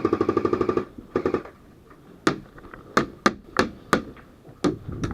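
Airsoft guns firing: a rapid full-auto burst of about a second, a short second burst, then about seven single sharp cracks at uneven spacing.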